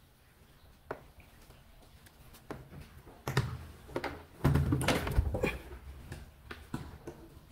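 Scattered knocks and taps, with a louder stretch of bumping and rustling about three to five and a half seconds in.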